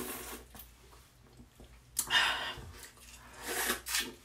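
Three short breathy sounds from a person's mouth and nose, the loudest about two seconds in.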